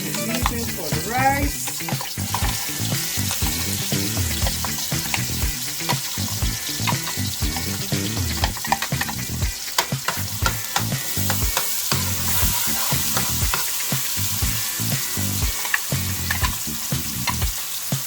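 Food frying in hot oil in a pot, a steady sizzle, with a spoon stirring it and knocking and scraping against the pot many times.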